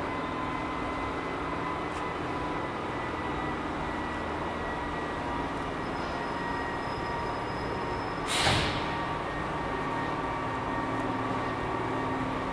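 Electric locomotive moving slowly through a station: a steady hum with a few held tones. About two-thirds of the way through comes a brief, loud hiss.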